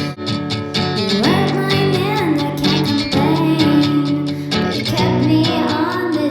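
Music: a singer's voice holding and gliding between long notes over acoustic guitar, in a rough early song demo.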